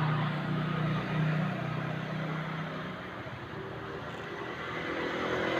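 Road traffic going by: steady engine hum from passing vehicles over continuous road noise, the hum fading about three seconds in and a higher engine note building toward the end.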